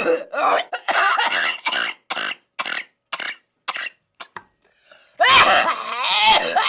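A woman coughing in a string of short, separate bursts, about two a second. About five seconds in comes a long, loud, throaty voiced sound.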